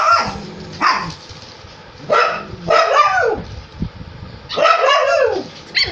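Pugs playing, barking in short yappy bursts about four or five times, with pauses between.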